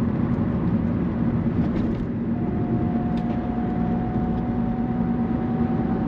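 Car interior noise while driving: steady engine and tyre rumble heard inside the cabin. A faint steady whine comes in about two seconds in.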